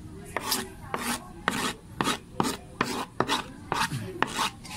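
Scrubbing a surface clean by hand, a rasping stroke about three times a second.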